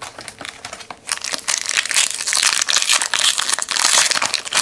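A trading-card pack wrapper being torn open and crinkled by hand: a dense crackling that starts lightly and grows strong about a second in.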